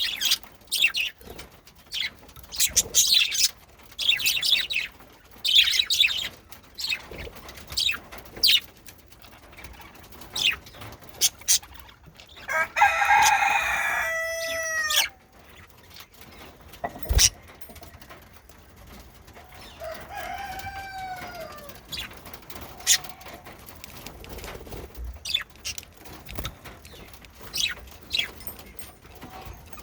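Male budgerigars chirping in quick sharp bursts, then giving a longer, louder call with arching, up-and-down pitch about halfway through, and a shorter arched call a few seconds later.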